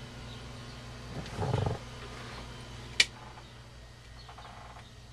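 Steady low hum of onboard machinery running, with a brief low rumble about a second and a half in and a single sharp click at about three seconds.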